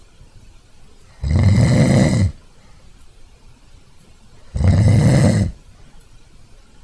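A person snoring: two loud snores, each about a second long, a little over three seconds apart.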